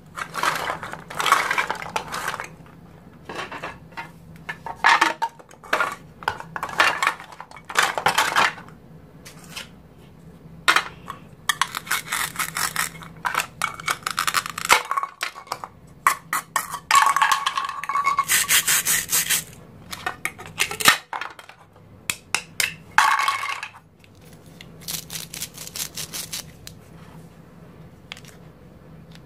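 Plastic toy food being cut apart with a plastic knife: repeated scratchy ripping bursts as the velcro joins between the halves are pulled open, between clacks and knocks of the plastic pieces.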